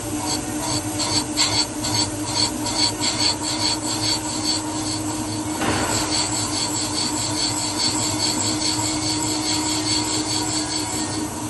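Valve seat cutter turning in a cylinder head's valve seat, scraping metal in rhythmic pulses of about three a second over a steady spindle-motor hum. About halfway through the scraping grows noisier and more even.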